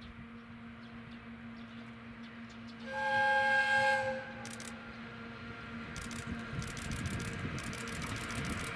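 The steam whistle of steam locomotive C58 363 blows once, a single pitched blast of about a second and a half. Then the train's running noise grows steadily louder, with rapid clicking.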